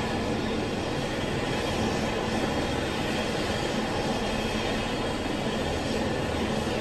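Air ambulance helicopter on the ground with its turbine engines and rotor still running: a continuous, even noise with a faint low hum.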